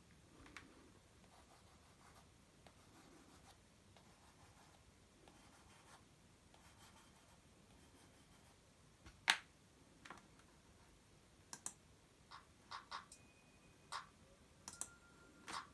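Faint pencil strokes scratching on sketchbook paper, repeated short strokes, followed in the second half by a run of sharp taps and clicks, the loudest about nine seconds in.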